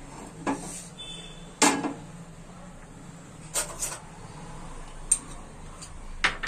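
A few sharp knocks and clinks of cookware as a nonstick tawa is handled on a gas stove's burner grate, the loudest about a second and a half in.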